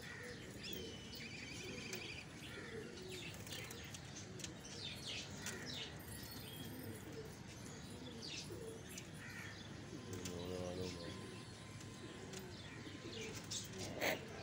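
Domestic pigeons cooing inside their wire-mesh coop boxes, a low wavering call repeated over and over, with scattered high chirps. A single sharp knock sounds near the end.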